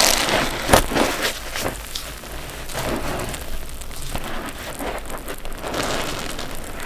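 Water-soaked block sponges being squeezed and rinsed: a wet, crackling squelch with water pouring and dripping off. It is loudest in the first second, with one sharper crack under a second in.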